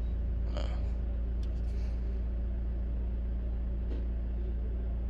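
Steady low rumble of the Mitsubishi Pajero Sport's diesel engine idling, heard from inside the cabin, with a couple of faint ticks.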